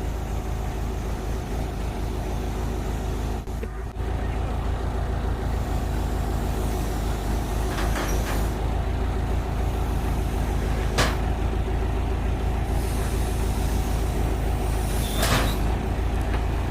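Backhoe's diesel engine running steadily as its hydraulic arm lifts a load. Three short sharp noises in the second half.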